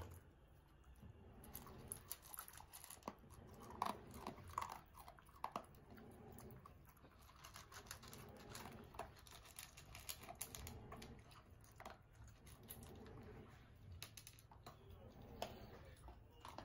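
Shiba Inu dogs eating, crunching dry kibble and chewing in many quick, faint crunches and clicks, loudest around four to five seconds in.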